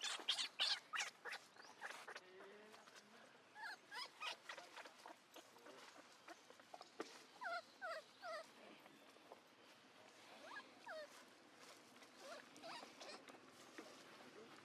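A baby monkey giving short, high squeaks in quick runs of three or four, with clicking and rustling at the start.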